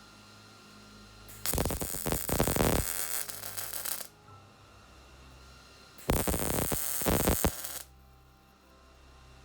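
Two loud bursts of harsh, crackling noise from a shop tool working on the car's sheet-metal body, the first about two and a half seconds long starting about a second and a half in, the second shorter, starting about six seconds in.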